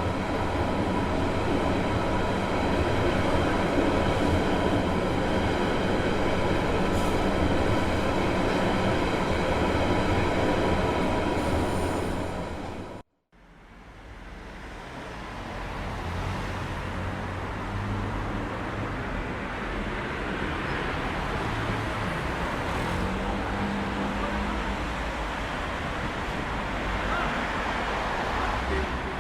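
A train running on rails, with a steady rumble and several steady whining tones over it, cuts off abruptly about thirteen seconds in. A different city ambience then fades up: a steady noisy wash with no clear single source.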